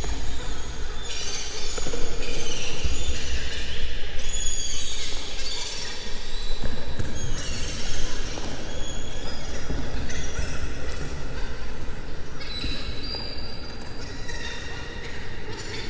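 Train wheels squealing on rails: shrill steady tones that keep jumping in pitch, over a low rumble.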